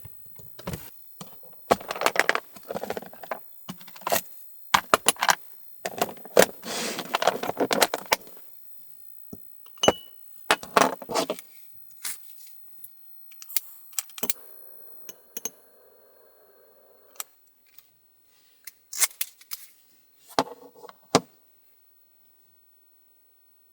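Irregular bouts of rattling and clinking with sharp clicks, as of small hard objects being handled, broken by quieter pauses.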